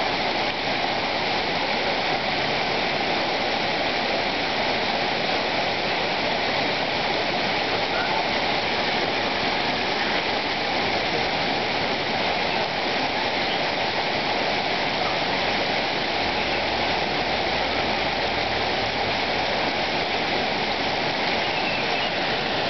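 Steady rush of running water from a stream and small cascade.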